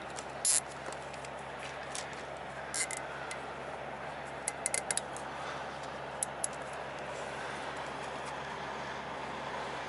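Scattered sharp clicks and taps of hands working the heated wiper blade's wiring and plastic zip ties, the loudest about half a second in and a quick run of them around the middle, over steady background noise.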